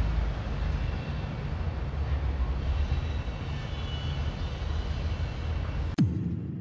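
Steady low outdoor background rumble. About six seconds in, a sharp click and a quick falling swoop come as the sound fades away.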